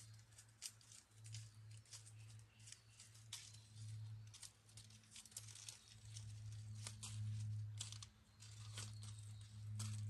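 Smoky wood campfire crackling, with many small sharp pops and snaps at irregular moments. Beneath it runs a low hum that swells and fades, loudest a little past the middle.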